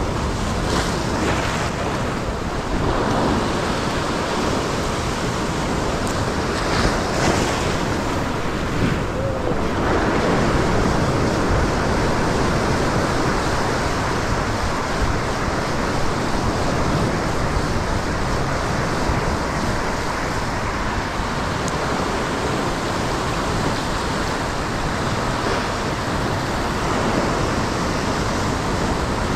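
Ocean surf washing and breaking against a rock ledge, a steady rush of whitewater with a few louder surges in the first ten seconds, and wind buffeting the microphone.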